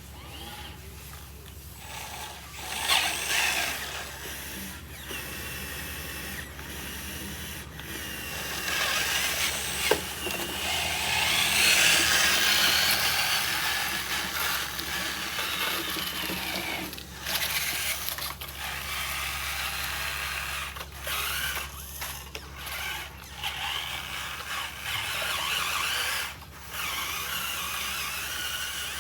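Small electric motors and gearboxes of radio-controlled construction models whirring, starting and stopping again and again, loudest through the middle.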